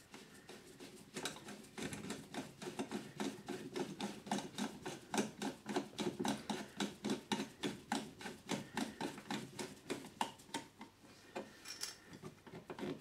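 Screwdriver driving the screw of a metal earth clamp, a quick run of small metallic clicks and scrapes at about three to four a second as the screw is turned in to fix the earthing-wire lug to the clamp.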